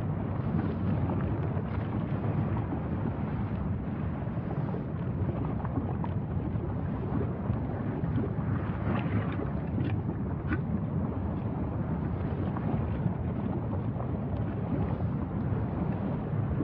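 Steady low rumbling noise of wind buffeting the microphone.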